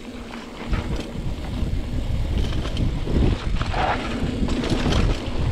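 Wind buffeting the action-camera microphone and the tyres of a Trek Marlin 7 hardtail mountain bike rumbling over a dirt trail, with clicks and rattles over bumps. It grows louder as the bike picks up speed about a second in.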